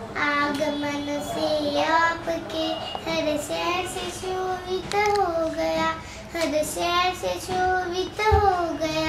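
A young girl singing a song unaccompanied, holding notes and sliding between pitches.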